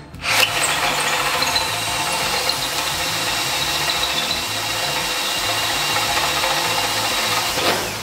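Einhell TE-CD 18/50 Li BL brushless cordless drill in first gear, driving a 28 mm hole saw through a wooden board: a steady motor whine with the teeth cutting wood. It starts just after the beginning and stops shortly before the end, and the cut goes through easily.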